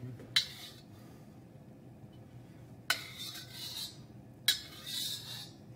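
Metal wok spatula clinking against and scraping across a hand-hammered steel wok, three strokes, each starting with a sharp clink and trailing into a scrape, as oil is spread to coat the wok while it heats.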